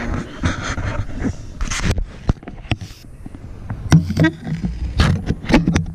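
Handling noise: irregular knocks, clicks and scrapes as driftwood decor is lifted and moved about inside a glass reptile terrarium, over a low rumble of the camera being handled.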